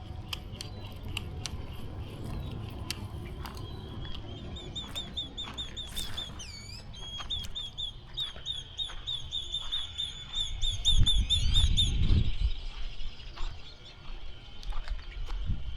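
A bird calling a fast run of short repeated chirps for several seconds, over scattered clicks and low rumbling handling noise that swells near the middle.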